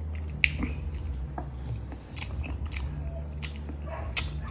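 Close-miked mukbang eating sounds: chewing of saucy chicken adobo, with a string of sharp, irregular wet mouth clicks and smacks. A steady low hum runs underneath.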